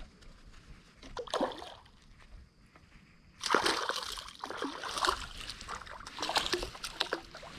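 A hooked bass splashing and thrashing at the water's surface, starting about three and a half seconds in and going on in repeated splashes almost to the end.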